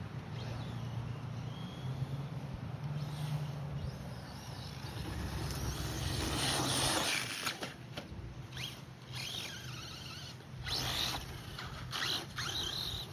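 Electric RC car running over rough ground: a low motor hum that steps up and down in pitch, a swell of tyre and grit noise about six seconds in, then a series of short knocks and scrapes.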